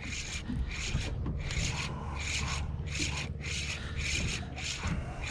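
Spinning reel cranked steadily under the load of a hooked tautog, with a rhythmic rasp about twice a second at each turn of the handle.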